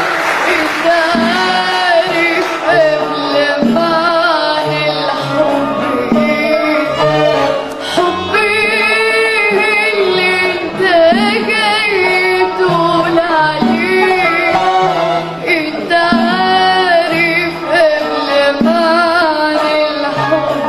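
A singer holding a richly ornamented melody with wavering, sliding notes over instrumental accompaniment with a steady beat.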